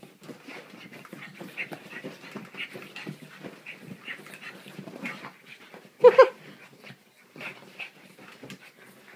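Pug breathing hard in rapid, irregular puffs while it scuffles about on a bed. About six seconds in there is a sudden loud, pitched two-part cry.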